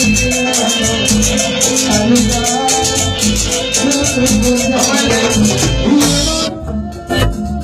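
Latin dance band music with a steady beat and a shaker keeping time. Near the end the shaker drops out for about a second and the music dips.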